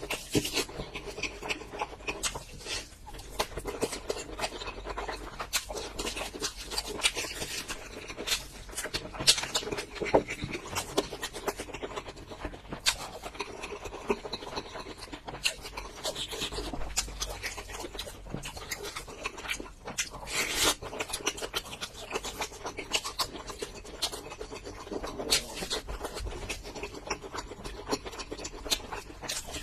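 Close-miked eating: a person chewing crunchy food, with many irregular crisp crunches and crackles and wet mouth sounds.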